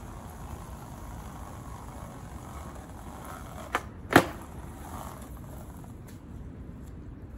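Skateboard trick: the tail pops with a sharp click, then about half a second later the board slaps down on the pavement with a much louder clack, over steady background noise.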